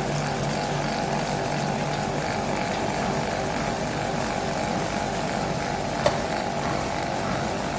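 Shrink wrapping machinery running with a steady mechanical hum, and one sharp click about six seconds in.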